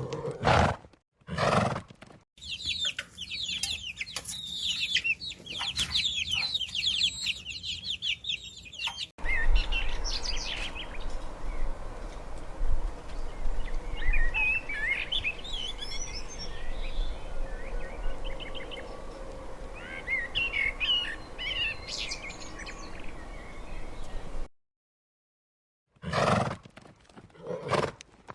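Series of animal sound clips: a dense chorus of rapid high chirps and peeps from birds, then scattered bird chirps over a steady low rumble of wind. Near the end there is a second and a half of silence before another animal clip begins.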